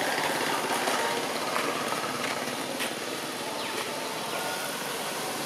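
A small engine running steadily, a constant mechanical drone with a fast pulse.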